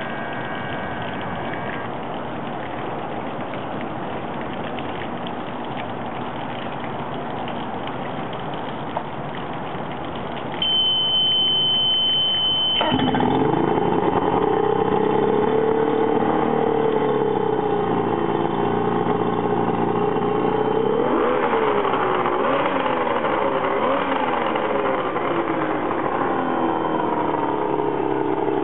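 Mercury 200 hp 2.5-litre V6 two-stroke outboard starting a little under halfway through, after a steady hiss and a high beep about two seconds long. It then runs at idle, with several quick throttle blips that rise and fall in pitch.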